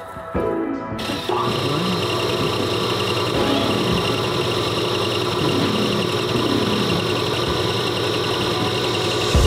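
Rebuilt Denso alternator being spun up for its test. It winds up in two steps in the first second or so, then runs steadily with a layered mechanical whine.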